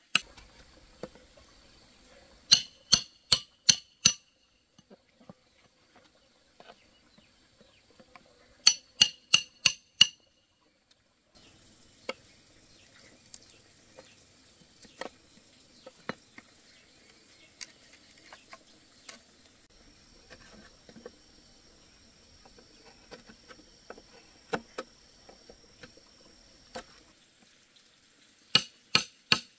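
A steel open-end wrench used as a hammer, striking a steel rod driven into a green bamboo pole: three bursts of four or five ringing metal-on-metal clinks, about three a second. Fainter scattered taps and scrapes of handling come in between.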